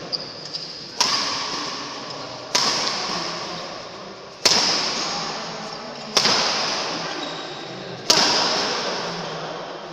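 Badminton rackets striking a shuttlecock five times in a fast doubles rally, a sharp crack every one and a half to two seconds, each echoing on through a large hall.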